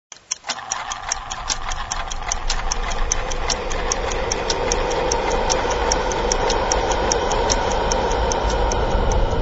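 Even ticking, about three or four ticks a second, over a steady noisy rumble that swells up in the first couple of seconds and then holds.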